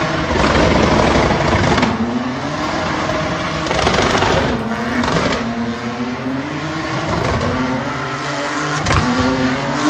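An SUV's engine revving hard, its pitch rising and falling again and again, over the rush and squeal of spinning tyres as it drifts in tight donuts on pavement.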